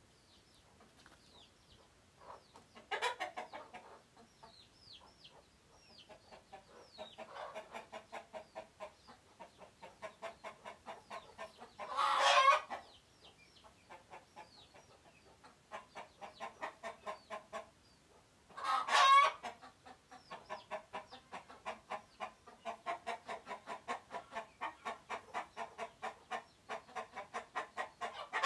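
Chickens clucking in long, quick runs of about four clucks a second. The clucking is broken three times by a much louder, short squawk, with a few high, falling chirps near the start.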